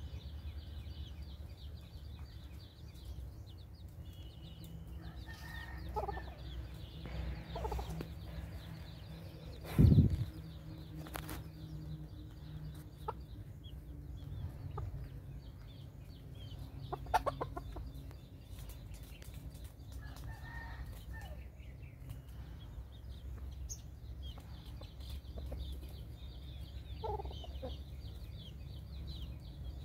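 Chickens clucking now and then over a steady low background rumble, with one loud thump about ten seconds in.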